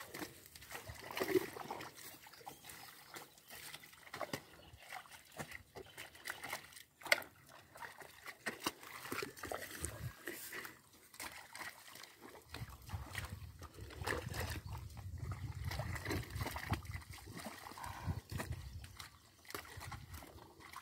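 Hoes chopping into wet clay soil and slapping mud, with squelching and water sloshing in the flooded furrows, as irregular chops and splashes. A low rumble joins in the second half.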